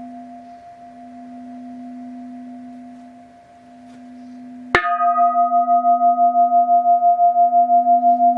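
A 19th-century Japanese brass orin (Buddhist bowl bell) rings on as its hum fades. About halfway through it is struck again: a sharp strike, then a louder, sustained ring with several overtones that pulses evenly, about four or five times a second.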